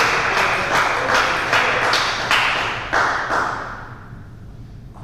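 Table tennis ball tapping on table and bat, about two to three taps a second over steady background noise. The taps and noise die away about three and a half seconds in.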